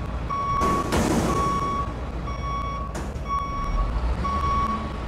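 A truck's reversing alarm beeping about once a second, each beep about half a second long, over a low engine rumble. A burst of hiss rises about a second in and a sharp knock comes about three seconds in.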